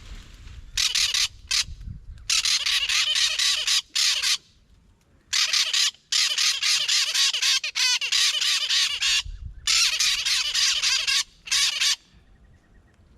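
Parrots squawking: harsh, rapidly repeated screeching calls in several loud bouts with short breaks between them.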